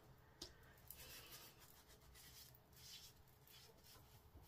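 Faint rubbing of hands being wiped clean of stamping ink, with a soft tick about half a second in.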